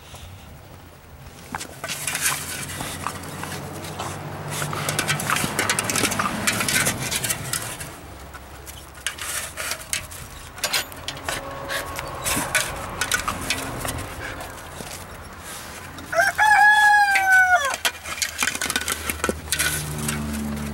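A rooster crows once, a single long call of about a second and a half, slightly falling in pitch, about three-quarters of the way through; it is the loudest sound. Before it come irregular crunching and scuffing steps on snow, and a low hum comes in near the end.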